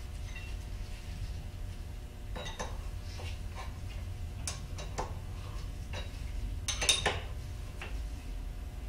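Scattered metal clicks and clinks of a hand tool working on the handwheel hub of a milling machine's power feed, loudest in a quick cluster about seven seconds in, over a steady low hum.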